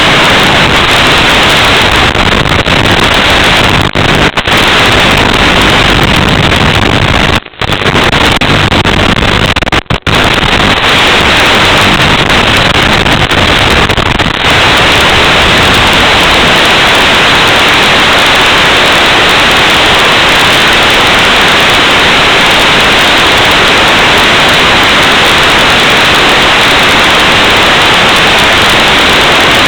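Loud, steady static hiss with no tone in it, breaking off briefly three times, about 4, 7.5 and 10 seconds in.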